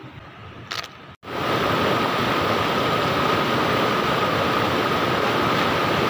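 Fast river water rushing over rocks at a small waterfall, a loud steady rush that starts abruptly about a second in after a quieter stretch of outdoor background.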